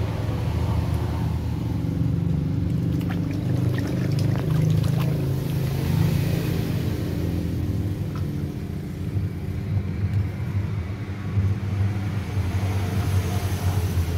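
A steady low rumble, with light splashing and sloshing of water as a plucked duck is rubbed and washed by hand in a plastic basin.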